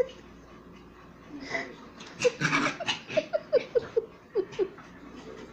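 A person laughing: a run of short, evenly spaced 'ha' bursts starting about two seconds in and lasting a couple of seconds.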